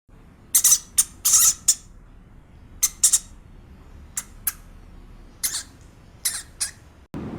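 An animal's short, high-pitched squeaks or chirps, about a dozen in irregular clusters, each very brief. Near the end the sound cuts to a steady rush of wind.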